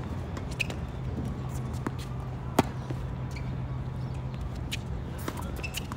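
Tennis rally on a hard court: a sharp, close racket-on-ball hit about two and a half seconds in is the loudest sound, with fainter hits and ball bounces from farther off before and after it. A steady low hum sits underneath through the middle.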